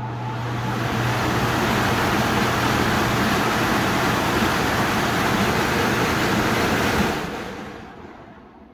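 Squirrel-cage blower fan being test-run: its electric motor hums and the air rushes through the housing as it comes up to speed over the first second, runs steadily, then is switched off about seven seconds in and winds down.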